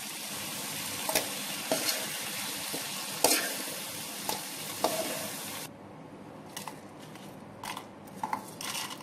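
Shallots, garlic and tomato sizzling in sesame oil in an aluminium kadai while a metal spoon stirs and scrapes the pan, with sharp clicks about once a second. The sizzle cuts off suddenly about six seconds in, leaving a few faint light ticks of coriander seeds being pushed into a steel mixer jar.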